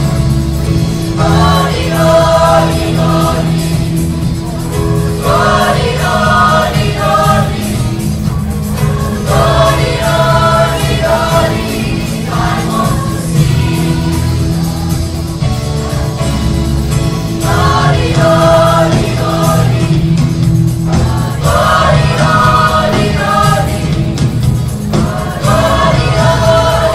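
Large youth choir singing a gospel song in phrases, backed by keyboard and a drum kit.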